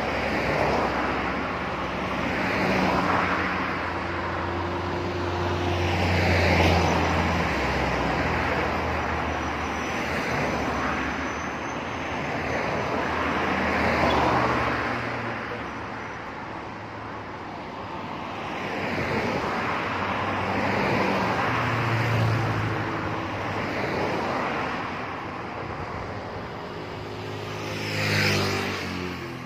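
Road traffic: a string of motor vehicles passing close by one after another, each swelling and fading with engine drone and tyre noise. The loudest pass comes near the end, its engine note dropping in pitch as it goes by.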